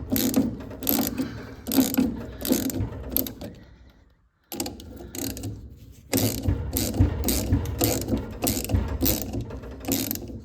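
Hand ratchet wrench clicking in repeated back-and-forth strokes as bolts are undone, pausing briefly about four seconds in before carrying on.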